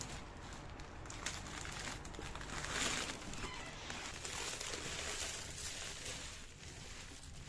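Packaging being handled: crinkling and rustling with small clicks, loudest about three seconds in.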